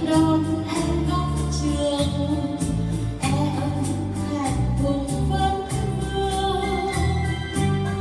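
Two women singing a Vietnamese duet into microphones over a Yamaha Tyros arranger keyboard's accompaniment, with a steady bass line and drum beat.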